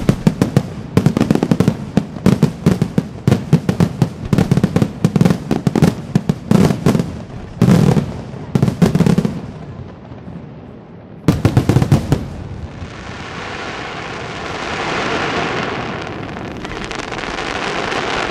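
Fireworks display: rapid volleys of shell bursts and crackling reports, easing briefly about ten seconds in and returning in one more quick flurry. From about twelve seconds on, a steady rushing hiss rises and falls as a fan of white ground fountains fires.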